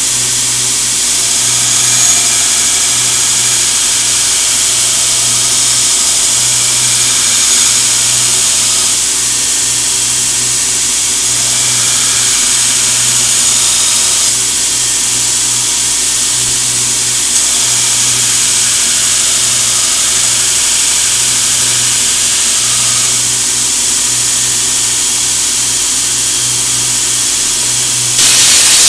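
Belt grinder running steadily while a CPM 15V steel knife blade is flat-ground against the abrasive belt, a constant motor hum under the hiss of steel on the belt. Near the end, a loud blast of compressed air from a blow gun hisses onto the blade for about a second.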